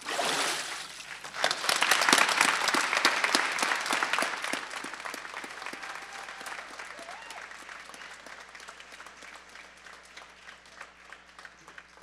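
A short splash of water from the baptismal tank as the boy is brought up from immersion, then a congregation applauding: the clapping swells quickly, then thins to scattered claps and fades away.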